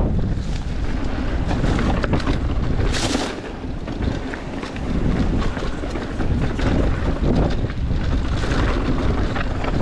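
Wind buffeting the camera microphone of a mountain bike moving fast over rocky trail, with steady rumble and many small clatters from the tyres and bike over rock. A brief hiss about three seconds in.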